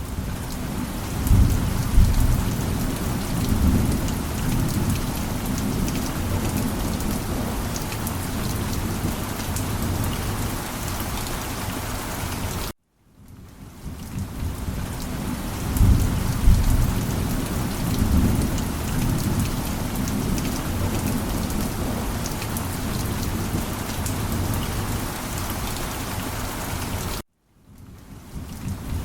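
Steady rain with low rolling thunder, the thunder swelling about a second in and again a little past the middle. The whole sound cuts out abruptly for a moment about halfway and again near the end, then fades back in.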